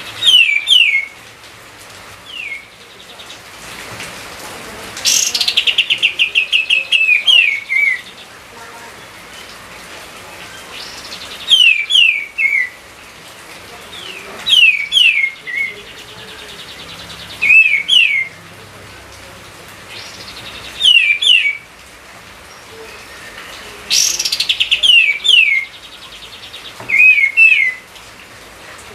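A songbird singing. It repeats short phrases of two or three quick downslurred whistled notes every few seconds, with a rapid chattering trill about five seconds in and another near the end.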